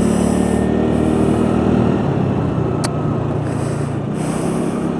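TVS Ntorq 125 scooter's single-cylinder engine running while riding, with wind buffeting the microphone. The engine note drops a little about two seconds in as the throttle eases off, and there is a single sharp click a little later.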